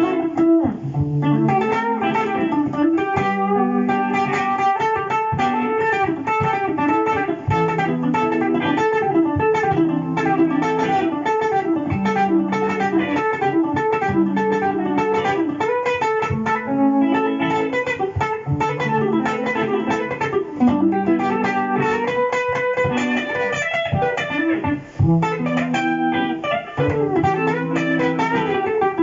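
Electric guitar through a Boss GT-100 multi-effects unit, a looped jazz-flavoured accompaniment of repeating low notes with a picked single-note melody played over it.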